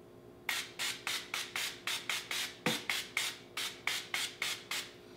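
Aerosol can of cooking spray hissing in a rapid series of short puffs, about four a second, as it coats the inside of an empty air fryer basket.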